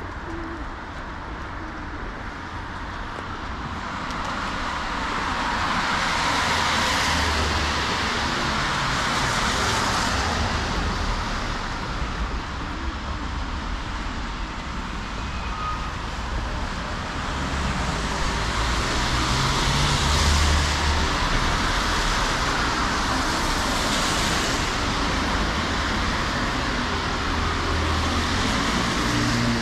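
City street traffic on wet asphalt: several cars pass one after another, each swelling and fading as a tyre hiss over a low engine rumble.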